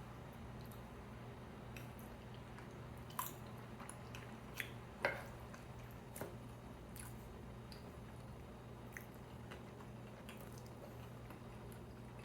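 Close-miked chewing of food: soft, wet mouth sounds with a few sharp clicks, the loudest about five seconds in, over a steady low hum.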